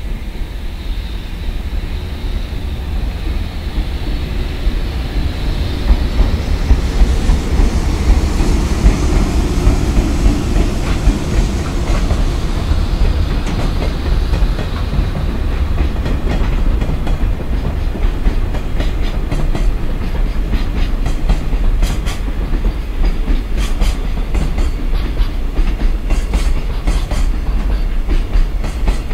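EH500 electric locomotive hauling a container freight train past, the rumble growing louder over the first several seconds as it approaches. Then the loaded container flatcars roll by with a steady rumble and a rhythmic clickety-clack of wheels over the rail joints, the clacks coming thick in the second half.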